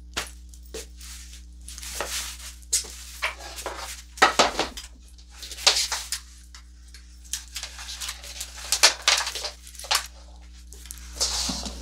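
Objects being handled and shifted about by hand: irregular rustling and scraping with several sharp knocks and clatters.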